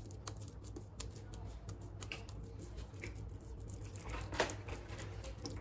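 Faint, moist clicking and squishing of oiled hands rolling a ball of spiced minced mutton between the palms, with a slightly louder click about four seconds in.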